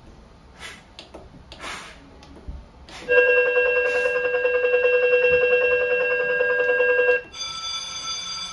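Electronic school bell tone from an automatic period-bell system: after a few faint clicks, a loud steady ringing tone starts about three seconds in and lasts about four seconds. It then switches abruptly to a different, higher, steady alarm-like tone.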